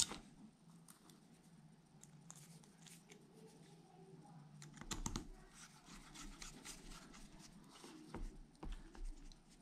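Faint ticking and scratching of a hand hex driver turning small screws into the beadlock ring of an RC crawler wheel, metal on metal, with a few slightly louder knocks about five seconds in and again near the end.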